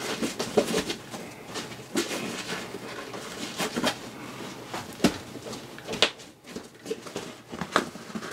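Nylon backpack webbing and plastic attachment clips being handled as a clip is threaded into the pack's MOLLE webbing: fabric rustling with irregular sharp clicks and taps.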